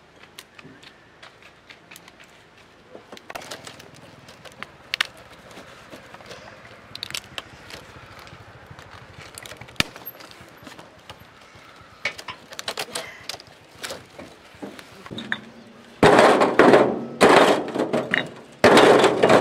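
Light clicks and crackling from plastic wrap and plastic strapping being pulled on a pallet of clay bricks, then from about three-quarters of the way in, loud clacks and knocks of clay bricks being handled and stacked.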